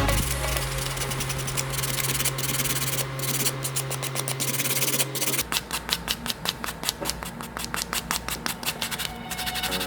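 A small electric tool motor runs with a steady low hum and stops about five seconds in. Quick rhythmic hand-sanding strokes on a diecast model car part follow, several a second.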